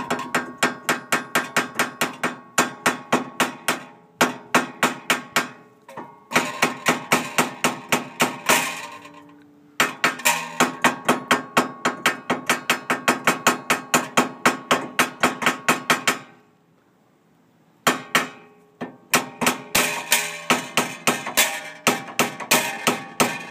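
Hammer blows driving a new splined lug stud through the wheel hub of a 2000 Honda Accord, struck quickly at about three to four a second with a metallic ring. The blows come in runs with short breaks and one longer pause about two-thirds of the way through.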